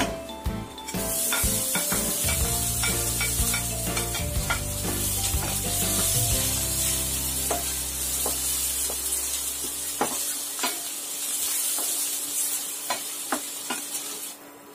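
Chopped red onion dropped into hot oil with garlic and ginger in a nonstick frying pan, sizzling loudly from about a second in, while a wooden spatula stirs and taps against the pan. The sizzle stops just before the end.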